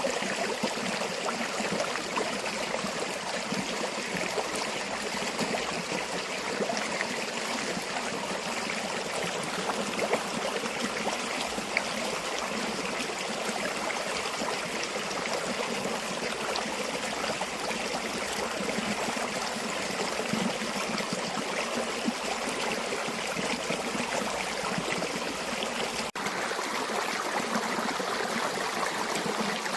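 A river flowing steadily, an even, unbroken rush of water with a brief dip in level about 26 seconds in.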